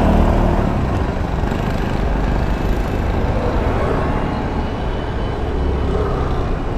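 Kawasaki ZX-10R's inline-four engine idling steadily, with street traffic noise around it.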